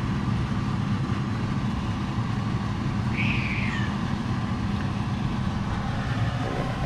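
A steady low mechanical hum. About three seconds in, one short high call falls in pitch.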